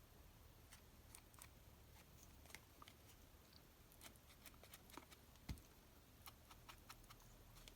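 Near silence, with faint scattered light clicks and taps and one soft knock about five and a half seconds in: small craft tools being handled while inking the edges of a paper-covered jigsaw piece.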